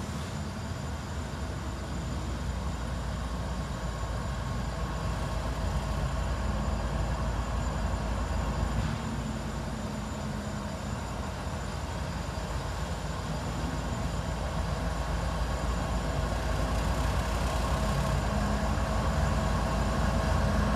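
CSX ET44AH diesel-electric locomotive, with its GE twelve-cylinder GEVO engine, approaching slowly at the head of a freight train. It makes a steady low rumble with a hum, growing louder as it draws near.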